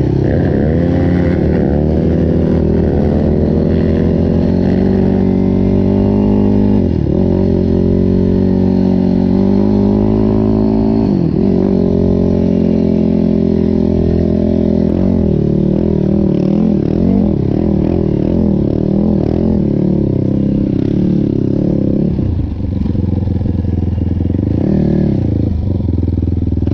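Sport quad's engine running under way, its pitch climbing and falling repeatedly as the throttle is worked and the gears change.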